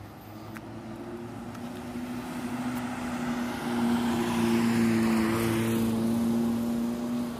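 A vehicle passing by: its engine and road noise build over several seconds, are loudest about two thirds of the way through, then fall away near the end.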